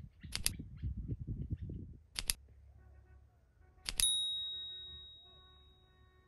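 Sound effects of a subscribe-button animation: three quick double mouse clicks about two seconds apart, the last followed by a bright bell ding that rings on and fades over about two seconds. A low rumble runs under the first two clicks.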